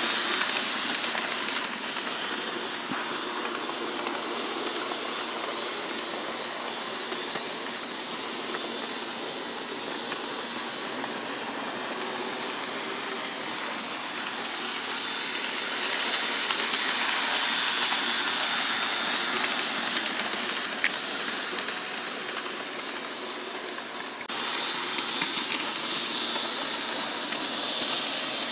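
Bachmann HO-scale 4-4-0 'The General' model steam locomotive running around a track oval at speed: a steady buzzy whir of its small three-pole motor and gears, with wheels running on the rails. It swells louder for a few seconds about two-thirds of the way through.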